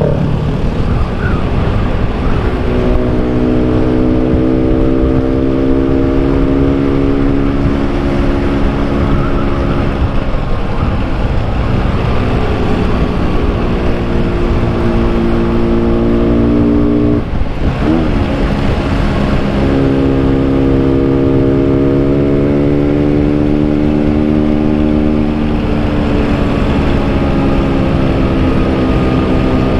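Yamaha RX-King's two-stroke single-cylinder engine running under way, its note rising slowly over several long pulls. There is a short drop about halfway through as the throttle is eased, with steady wind and road noise beneath.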